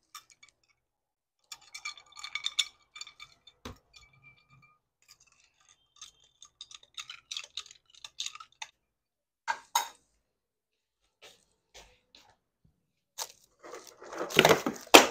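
Wooden skewers scraping and tapping against a takoyaki pan as the balls are turned: scattered light clicks and scrapes, some with a faint metallic ring, then a louder, denser clatter near the end.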